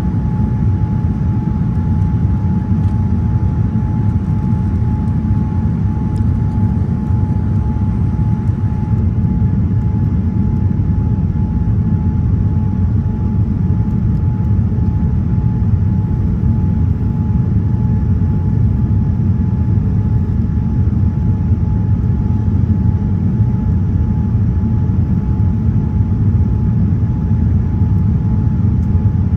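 Steady drone of a Boeing 787 Dreamliner heard inside the cabin: deep engine and airflow noise with a faint high whine held at one pitch throughout.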